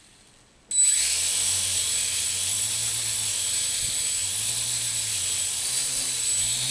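Blade mQX micro quadcopter's four small electric motors and propellers spin up suddenly about a second in and run with a steady high whine. The whir swells and sags in pitch every second or so. This is a hand-held test run, and the quad is working again.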